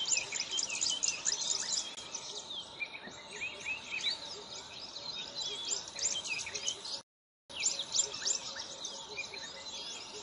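A dense chorus of small birds chirping and twittering, many quick overlapping calls. All sound cuts out for about half a second around seven seconds in, then the chirping resumes.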